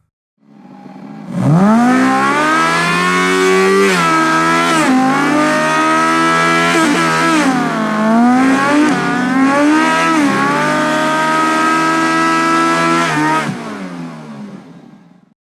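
Car engine revving and accelerating, its pitch climbing sharply about a second in, then dropping and rising again several times before holding steady and fading away near the end.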